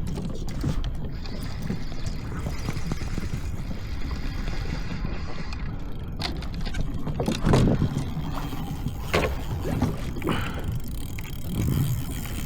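Steady wind rumble on the microphone and water washing against a kayak hull at sea, with a few short knocks and bumps from handling gear on the kayak.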